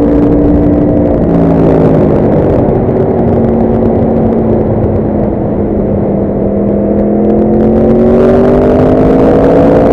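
Yamaha R1 motorcycle's inline-four engine running under way: its note falls as the bike slows off the throttle, then climbs steadily again from about seven seconds in as it accelerates.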